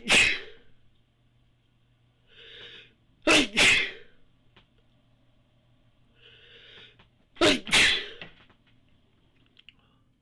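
A person sneezing three times, about four seconds apart, the first right at the start. Each sneeze comes as a sharp two-part burst, and the last two are preceded by an audible drawn-in breath.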